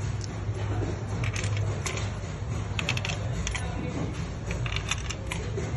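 Small metal parts and tools clinking and tapping in short sharp clicks over a steady low hum.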